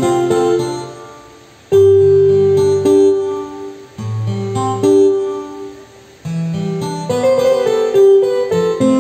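Tenor saxophone playing a melody of held notes in short phrases over a backing track with guitar and bass.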